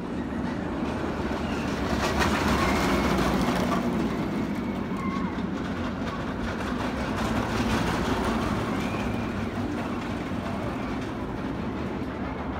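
Steel roller coaster train rumbling along its track, swelling twice as it passes.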